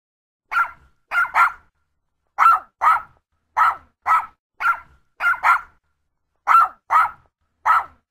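Yorkshire Terrier barking: about a dozen short, sharp, high barks, mostly in quick pairs, with brief silent gaps between the groups.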